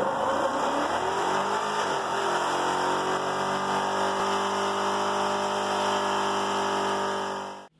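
Pickup truck engine revving hard during a burnout. The revs swing up over the first couple of seconds, then hold steady and high, and the sound cuts off abruptly near the end.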